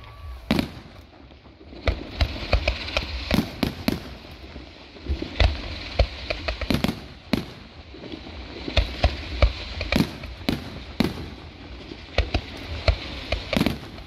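Fireworks display: aerial shells and comets firing and bursting in quick succession, a dense run of sharp bangs, some in tight clusters, over a low rumble.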